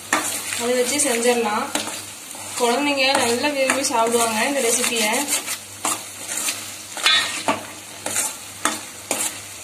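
Metal spoon stirring and scraping thick, ghee-rich bread halwa around a steel kadai, with the ghee sizzling and sharp clicks of the spoon against the pan. A wavering pitched sound runs through two stretches, from about half a second to two seconds in and from about two and a half to five seconds in.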